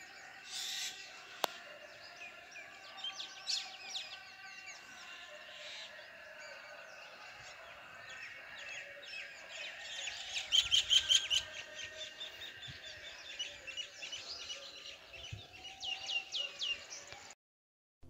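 Many birds chirping and calling together in a morning chorus, with a louder run of rapid chirps about ten seconds in. The sound cuts off shortly before the end.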